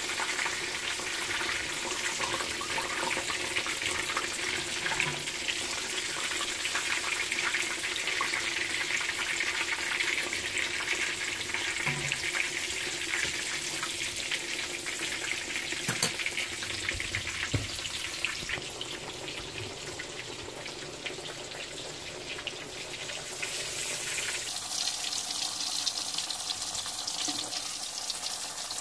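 Chapli kababs shallow-frying in hot oil in a cast-iron skillet: a steady crackling sizzle, with a single sharp knock about halfway through.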